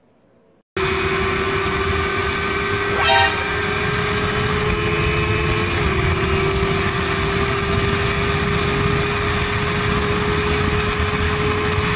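Motorcycle running flat out at over 200 km/h, heard from the rider's camera: loud wind rush over a steady high-revving engine note, cutting in suddenly about a second in. A short horn-like toot sounds about three seconds in.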